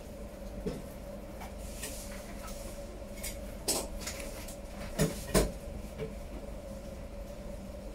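Serrated knife carving a roast Peking duck on a cutting board, with a few sharp clicks and knocks in the second half, over a steady background hum.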